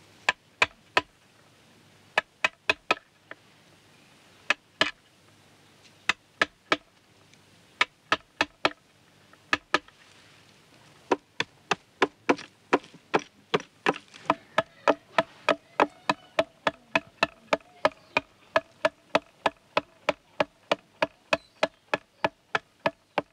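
A carving blade chopping into a block of wood, each stroke a sharp crack. The strokes are sparse and uneven at first, then settle to a steady rhythm of about two a second from around halfway through.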